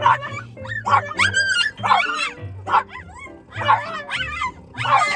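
French bulldog yelping and whining in a series of short, high cries that bend in pitch, about one a second, over background music.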